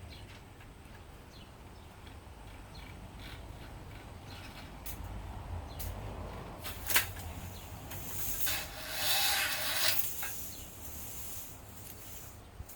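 Braided stainless-steel hose sheath rubbing and scraping as it is worked off the inner hose, with scattered clicks. There is one sharp click about halfway through and a louder scraping rustle a little after it.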